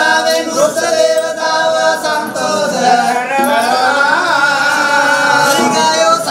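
Group of male voices chanting Sinhala ritual verses (shanthikarma kavi) together, in long held notes that slide up and down in pitch.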